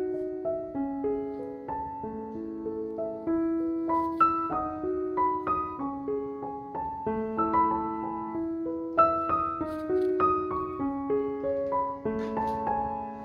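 Background piano music: a melody of single notes moving over lower sustained notes.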